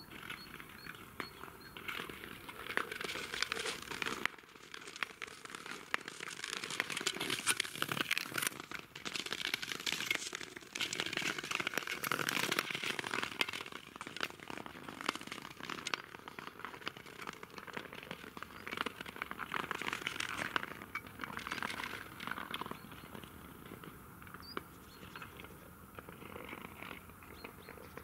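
Ice skate blades scraping over natural ice, with a dense crackle of fine clicks from the ice. The sound swells and fades several times as skaters pass, loudest in the middle and easing off near the end.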